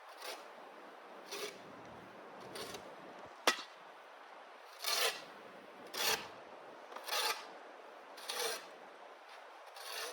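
A hand shovel scraping and scooping snow in repeated strokes, about one every second or so. There is a single sharp clack of the blade about three and a half seconds in.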